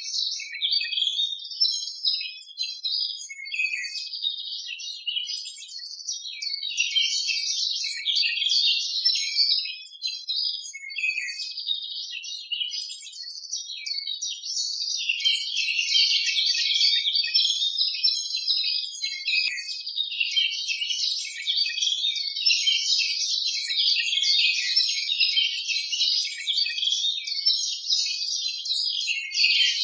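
Continuous dense chatter of bird chirps, many short high calls overlapping without pause.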